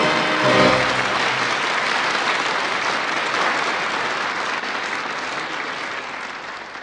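Audience applauding at the end of a live song recording, with the last notes of the accompaniment dying away about a second in. The applause gradually fades out near the end.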